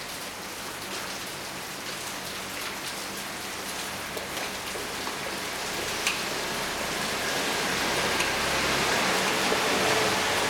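Steady rain falling, with scattered single drops ticking sharply; it grows louder over the second half.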